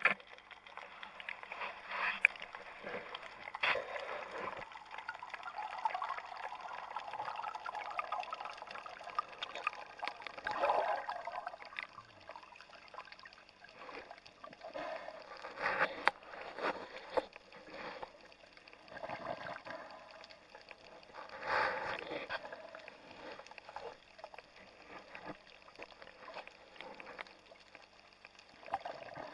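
Water swishing and gurgling around an underwater camera as it moves through the water, in irregular surges every few seconds.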